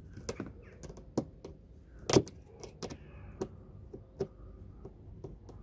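Irregular clicks and light knocks of hand work on car body parts, tools and fasteners handled, with one louder knock about two seconds in.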